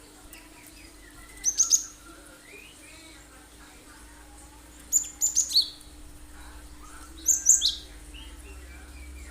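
Cinereous tit (gelatik batu) singing in three short bursts of sharp, high notes, each burst three or four quick notes, about a second and a half in, around five seconds in, and past seven seconds. Fainter chirping fills the gaps between the bursts.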